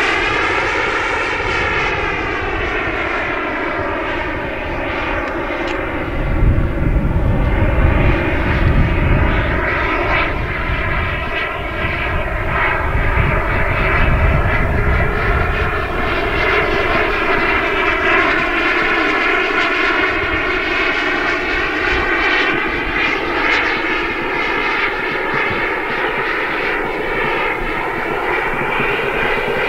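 Kingtech K85 G4 turbine of a Hangar9 MB-339 model jet in flight: a steady jet sound with a slow phasing sweep in its tone as the plane moves across the sky. A low rumble swells between about six and ten seconds in.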